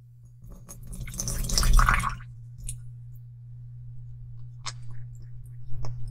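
Water poured from a small plastic cup into a glass bowl for about two seconds, then a few soft clicks and drips as red liquid colouring is squeezed from a dropper bottle into the water. A steady low hum runs underneath.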